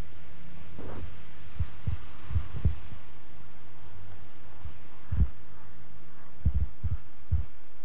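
Steady low electrical hum from the recording, with about ten dull low thumps on the microphone, scattered unevenly and bunched in two groups.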